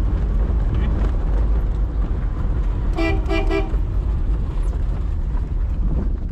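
Steady engine and road rumble of a 1997 Maruti 800's 796 cc engine on the move, with a car horn beeping in a few quick short toots about three seconds in.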